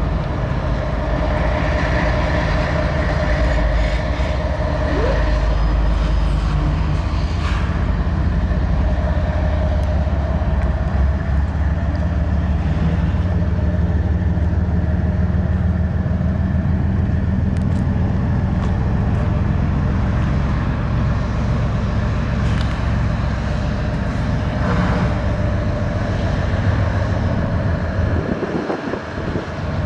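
CSX diesel freight locomotive's engine running with a deep, steady drone as the locomotive moves past, with a higher steady whine over it for the first several seconds.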